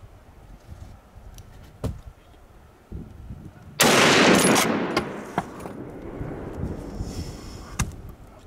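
A single hunting-rifle shot about four seconds in, sudden and loud, echoing and dying away over about three seconds. A couple of fainter sharp cracks come before and after it.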